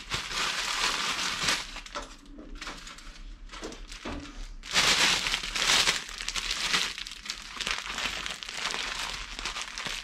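Plastic bread bag crinkling as it is handled and closed up, in irregular rustles that are loudest about five seconds in.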